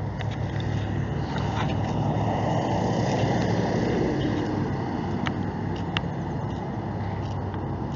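Motor vehicle noise: a steady low engine hum with a wash of road noise that swells and fades around the middle.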